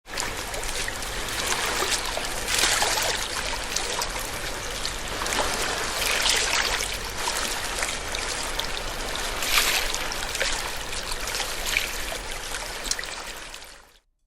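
Sea water washing and splashing against a breakwater, a steady rush that swells every few seconds, with a low hum underneath. It cuts off just before the end.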